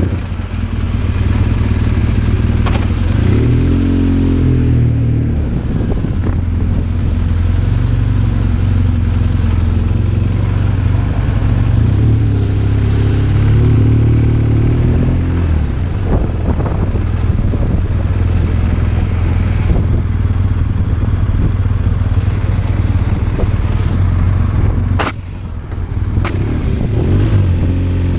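BMW R1200RT's flat-twin engine running under way, a steady low drone whose pitch rises and falls a few times as the bike accelerates and eases off. Near the end the sound drops briefly, with two sharp clicks.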